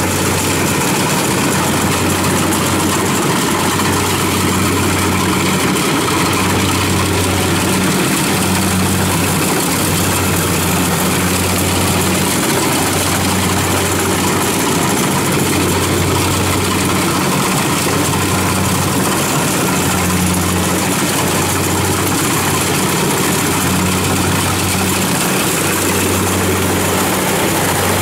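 Kubota DC70 combine harvester running steadily under load as it cuts and threshes rice: a dense, even machine noise, with a low engine hum that swells and drops every second or two.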